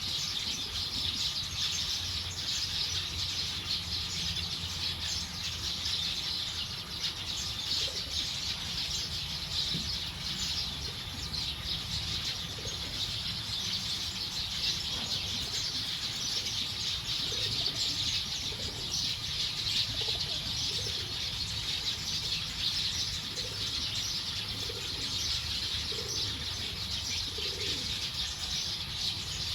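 A large flock of small birds chirping all at once in a dense, unbroken chatter as they settle to roost, with a few short lower calls in the second half.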